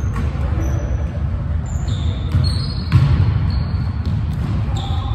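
A basketball bouncing on a hardwood gym floor during a pickup game, with short high sneaker squeaks and players' voices mixed in. A louder thud comes about three seconds in.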